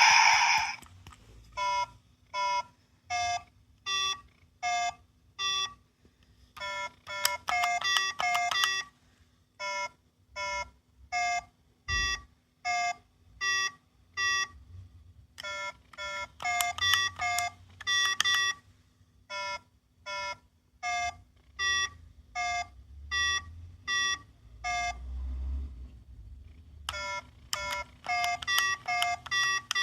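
Small electronic sounder in a capsule toy playing a string of short beeping notes at changing pitches. Some notes are spaced out and some come in quick runs, with brief pauses between phrases.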